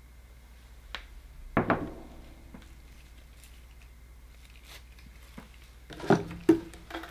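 Tabletop handling sounds: a click, then a sharp knock about a second and a half in that rings briefly, as the silver bowl is set down on a wooden cutting board. Several more knocks and clinks come near the end.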